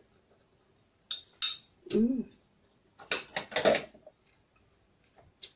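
Cutlery clinking twice against a dish, then a short hummed 'mm' and a scraping clatter of eating from the dish.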